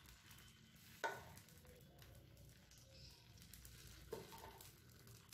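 Batter being ladled into a hot, oiled kuzhi paniyaram pan: a faint sizzle, with a sharp knock of the steel ladle against the pan about a second in and a softer knock about four seconds in.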